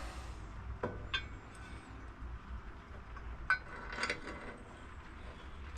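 Metal clinks and taps of a bolt and washer being fitted to an engine mounting bracket: a couple of light clicks about a second in, then a sharper ringing clink and a short cluster of taps around three and a half to four seconds in, over a steady low hum.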